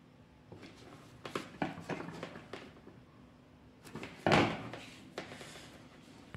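Handling noise of a circuit board and multimeter test probes: light clicks and taps as the probe tips and gloved hands move over the board, then one louder knock about four seconds in as the board is set back down on the bench, followed by a few faint ticks.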